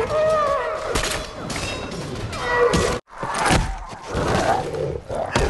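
Film battle soundtrack: shouted, gliding cries and groans with sharp blows and thuds, broken by an abrupt cut about three seconds in.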